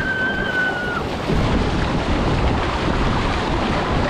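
Surf breaking and washing in the shallows around a small fishing boat as it is pushed out, with wind buffeting the microphone; the rumble of water grows louder about a second and a half in. A single high, steady tone sounds for about the first second.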